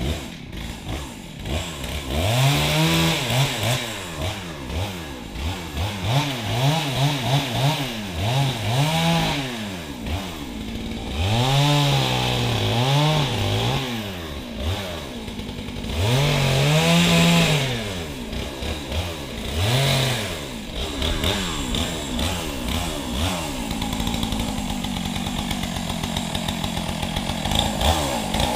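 Chainsaw revved up and down again and again, each rev rising and falling in pitch, then settling into a steadier idle for the last few seconds.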